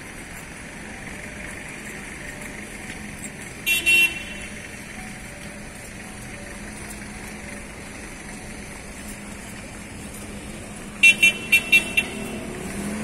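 Light city street traffic running steadily, with a horn tooting briefly about four seconds in and four quick high-pitched toots about a second before the end.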